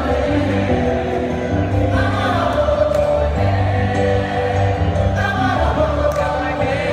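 Music with a choir singing over a steady bass line, in a gospel style.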